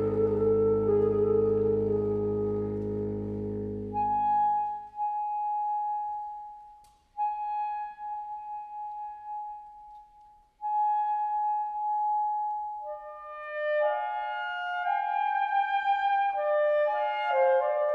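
Saxophone ensemble playing live: a full sustained chord fades away over the first few seconds, leaving a single high note held in three long stretches. Near the end other saxophones enter with shifting notes that build back into harmony.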